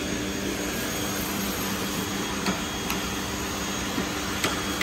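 A steady mechanical hum and hiss from a running machine, with a few faint clicks.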